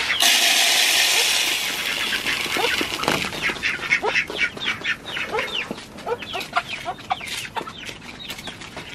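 Poultry feed poured from a bucket into a plastic feeder, a rushing hiss for about the first three seconds. Then chickens and ducks crowd the feeder, pecking at the feed with quick, irregular clicks among short calls.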